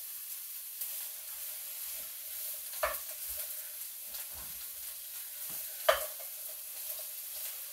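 Chopped vegetables sizzling in a frying pan while a spatula stirs them, with a steady hiss. A spatula knocks sharply against the pan twice, about three seconds apart; the second knock is the loudest.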